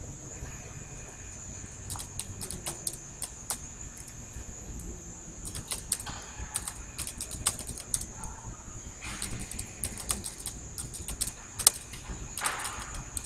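Typing on a computer keyboard: sharp keystroke clicks in irregular runs with short pauses between words.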